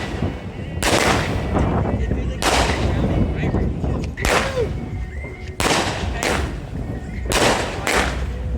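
Aerial fireworks bursting: five loud booms, about one every second and a half, each trailing off in an echoing rumble.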